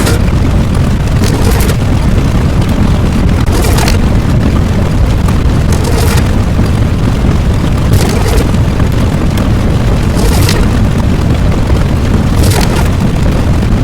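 Loud, continuous rumbling explosion-like sound effect, with a brief hissing surge about every two seconds.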